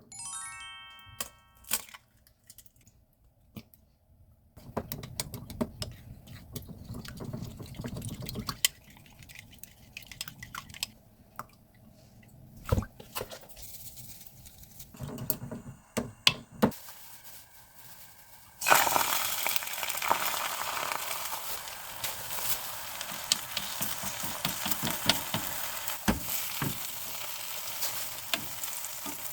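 Kitchen clatter of utensils and cookware, then food hitting a hot pan about two-thirds of the way through and sizzling steadily from then on, with the scrape and tap of stirring. A brief electronic tone sounds at the very start.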